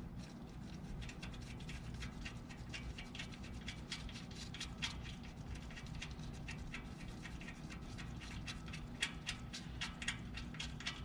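Faint, irregular light clicks and taps of small bolts and tools being handled, over a steady low hum.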